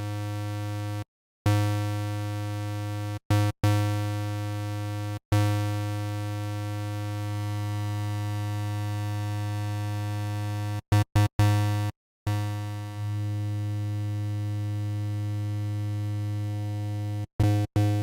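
Native Instruments Massive software synthesizer sounding one low, steady note rich in overtones, held as a drone and cut off and restarted about ten times while the patch is adjusted. Each restart begins loud and settles back to an even level.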